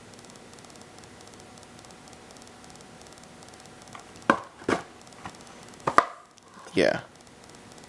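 Faint steady hiss, then a handful of sharp clicks and knocks over about two seconds, ending in a sudden cut-off of the sound.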